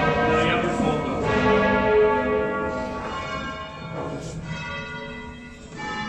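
Verona Cathedral's ring of eleven bronze church bells in A, rung full-circle by rope in the Veronese style. Bells strike every second or two, their notes overlapping and slowly dying away, with fresh strikes near the end.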